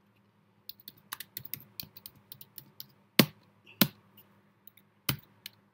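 Computer keyboard typing: a quick run of key clicks, then a few single, louder keystrokes spaced apart.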